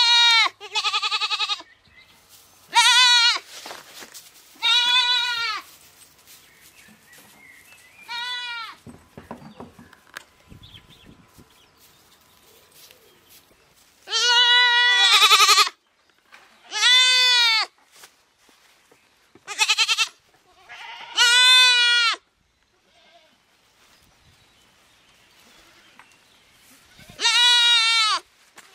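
Young goat kids bleating, about ten high bleats in irregular bunches, each call rising and then falling in pitch, with a quiet spell of several seconds between the middle and the last call.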